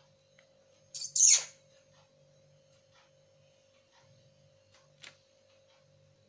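Plastic snack packet crinkling under a kitten's paws: a short, loud crinkle about a second in and a brief faint one near five seconds.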